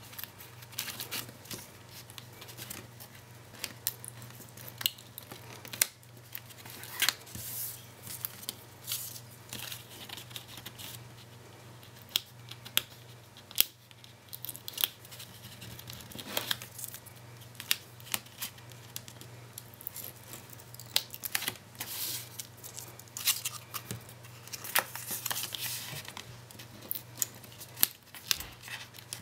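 Backing liner being picked up with a pointed tool and peeled off double-sided adhesive strip on cardstock: scattered short scratches, clicks and brief peeling rips, with paper handled between them. A steady low hum runs underneath.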